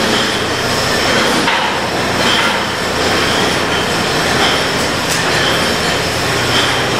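Brewery bottling line running: a loud, steady mechanical clatter of the conveyor and glass bottles, with short clinks about once a second.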